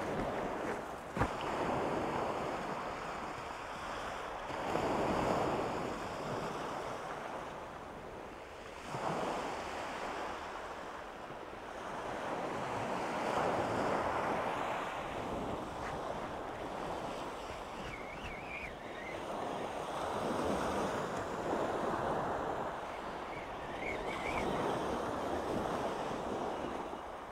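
Small waves breaking on a shingle beach, surging and fading every few seconds, with wind buffeting the microphone.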